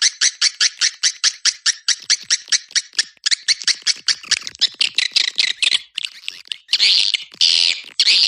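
Recorded swiftlet calls used as a lure sound: a fast, even series of sharp chirps, about six a second, then quicker twittering from about three seconds in, and a few longer raspy calls near the end.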